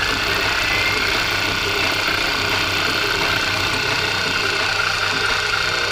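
Milling machine running steadily as it cuts slots, an even mechanical noise with a steady high whine over a low hum.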